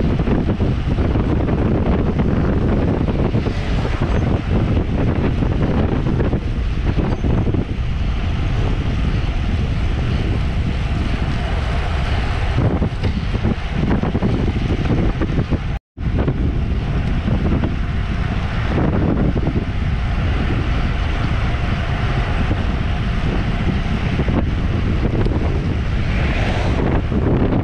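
Wind buffeting the microphone of a camera on a road bike at riding speed: a steady, loud rushing, with a short silent gap a little past halfway.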